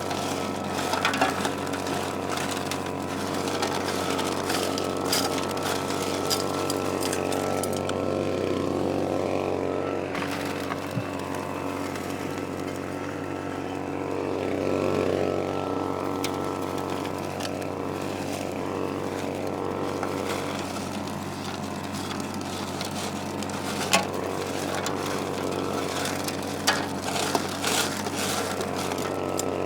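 Small gasoline engine of a vac pac prospecting vacuum running steadily. Scattered sharp clicks and rattles come from loose gravel being sucked up the intake hose.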